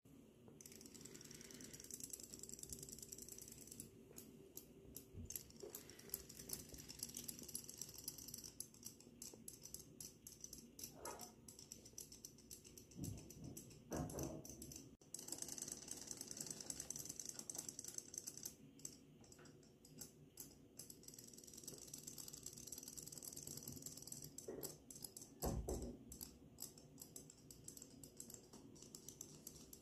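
Water-activated robot fish toys swimming in a plastic tub: a faint, rapid, irregular clicking and whirr from their tail motors. A couple of dull thumps come midway and again near the end.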